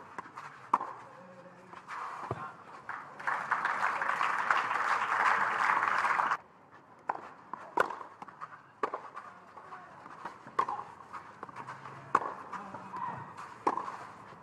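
Tennis ball struck by rackets in a short rally, then about three seconds of crowd applause that cuts off suddenly, followed by scattered single knocks of ball and feet on the clay court.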